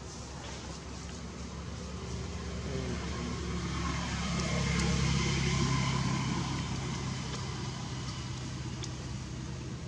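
A motor vehicle passing: a low engine hum that swells to its loudest about five seconds in and then fades away.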